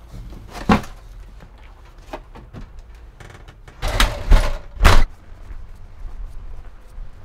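Knocks from climbing down out of a vintage Slumber Queen truck camper's doorway, then the camper's entry door being shut: three loud thumps about four to five seconds in.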